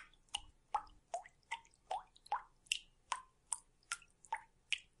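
Water dripping: a steady series of short plinks, about two and a half a second, each at a slightly different pitch.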